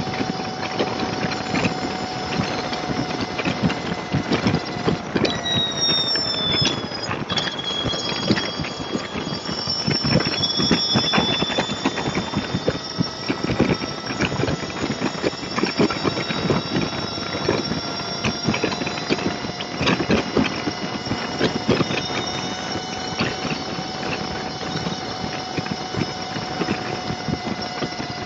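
Wind buffeting and road noise from a motorcycle at freeway speed, picked up by its dash camera's microphone, with a steady whine running through it.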